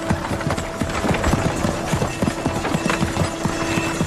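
Hooves of a team of draught horses clip-clopping as they pull a horse-drawn caravan, irregular overlapping knocks, with soft music holding a steady note underneath.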